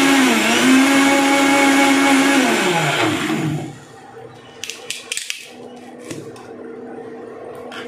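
Electric mixer grinder with a steel jar grinding sugar and roasted gram to a powder: the motor runs at a steady high speed, then is switched off about three seconds in and winds down with a falling pitch. A few sharp clicks and knocks follow as the steel jar is twisted off the base and lifted.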